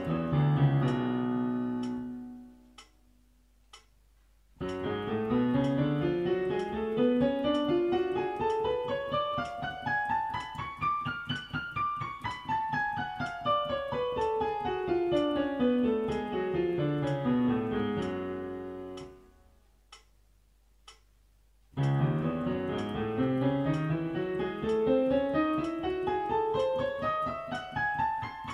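Yamaha piano playing scales hands together an octave apart, each run climbing steadily over several octaves and coming back down. One scale ends about two seconds in, a second runs up and down after a short pause, and a third begins rising near the end after another pause of about two seconds.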